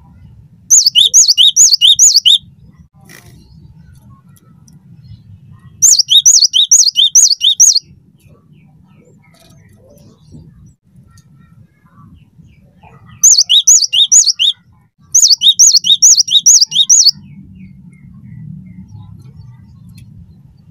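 Cinereous tit (gelatik batu) singing loudly in four bursts, each one and a half to two seconds of quickly repeated high, sweeping whistled notes, about five a second.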